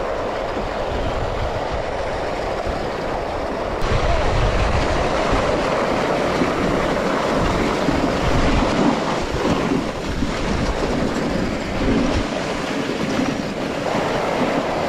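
Dog sled running along a snowy trail: a steady scrape and rattle from the runners and sled frame, with wind rumbling on the microphone. It gets louder about four seconds in.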